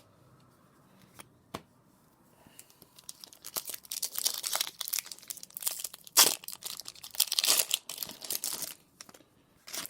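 Foil wrapper of a Pokémon trading card booster pack being torn open and crinkled, starting about two and a half seconds in, with the sharpest tear a little past halfway.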